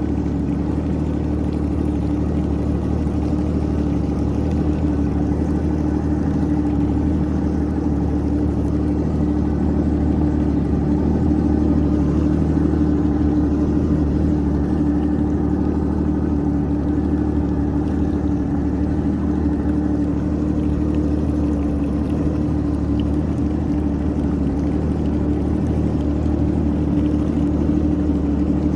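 Yamaha WaveRunner jet ski engine running at a steady speed, its pitch holding even.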